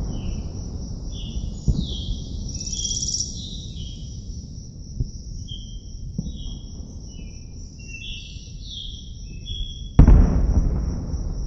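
Birds chirping over a low rumble, with a few faint pops; about ten seconds in, a sudden loud explosion boom that dies away.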